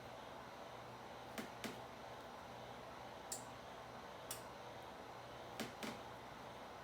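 A few light clicks and taps from kitchen work, six in all, some in quick pairs, over a faint steady hum.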